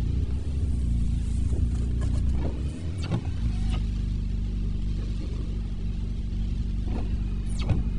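Car cabin noise while driving: a steady low engine and road drone, broken by a few short, sharp sounds scattered through it.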